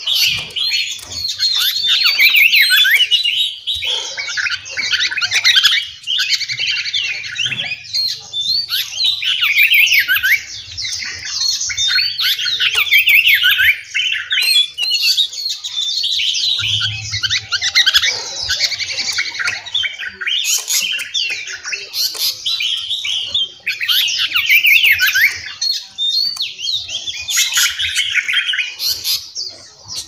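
A chorus of several songbirds singing and calling at once: dense, overlapping quick chirps, whistles and trills that swell and ease every few seconds.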